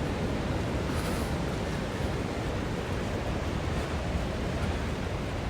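Steady rushing noise of ocean surf on a beach, mixed with wind buffeting the microphone.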